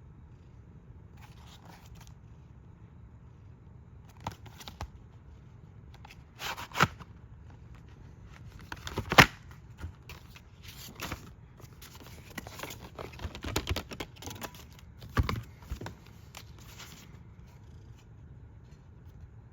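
Handling noises of a plastic DVD case being unwrapped: scattered crackles, scrapes and clicks, with the sharpest click about nine seconds in, over a steady low hum.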